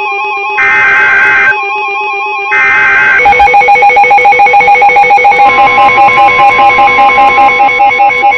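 Emergency Alert System broadcast tones: two loud, roughly one-second bursts of the screeching two-tone digital header that encodes the alert, with warbling tones between them. About three seconds in, a loud electronic alert tone takes over, pulsing about five times a second, which signals that a new warning follows.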